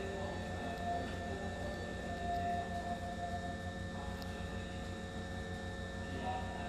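Steady electrical hum from a stopped Hankyu Railway train car standing at the platform with its doors open, with a thin steady high tone above it.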